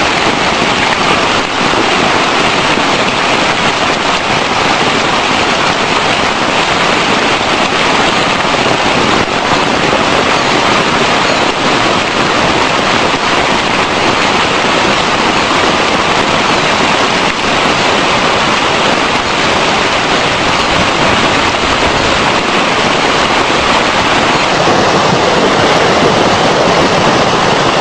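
Floodwater rushing down a swollen creek in a steady, loud torrent.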